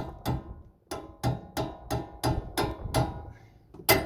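A steel hammer strikes metal on a 4Runner's front suspension, working the old sway bar end link loose. It lands about ten blows at roughly three a second, each ringing briefly, with the loudest blow near the end.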